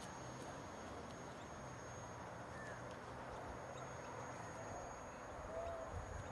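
A bird giving short, repeated calls about once a second, starting a little past the middle, over faint open-air background noise.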